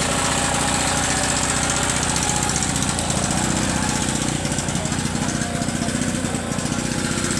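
A machine running steadily with a fast, even chugging, like a small engine or motor at constant speed, with faint voices in the background.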